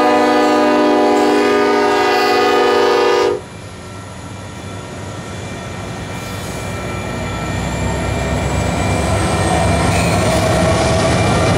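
The air horn of a Union Pacific EMD SD70ACe locomotive holds a steady several-note chord and then cuts off suddenly about three seconds in. After it comes the rumble of the passing diesel locomotives and freight cars, growing steadily louder.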